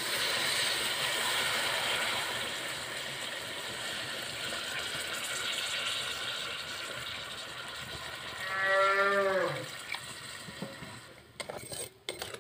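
Chicken sizzling and hissing in a wok as water is added to the fry. About nine seconds in, a cow moos once, a single call a little over a second long that falls in pitch. A few sharp clicks near the end.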